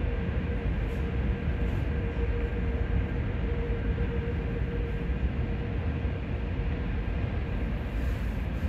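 Seoul Subway Line 5 train rolling slowly through the tunnel toward the siding, a steady low rumble with a thin hum that fades out about five seconds in.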